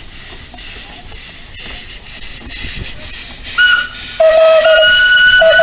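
Small 60 cm narrow-gauge steam locomotives passing, with rhythmic steam exhaust chuffs and hiss. About three and a half seconds in, a steam whistle starts with a high note, and half a second later a lower, louder note joins it and holds, the loudest sound here.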